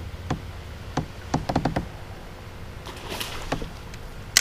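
Scattered light knocks and clicks of fishing gear being handled aboard a plastic kayak, a cluster in the first two seconds and one loud sharp click near the end, with a short hiss in between.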